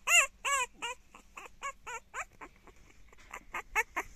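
Merle French bulldog puppy yapping in high-pitched barks: two loud ones right at the start, then a quick run of shorter, fainter yips at about four a second.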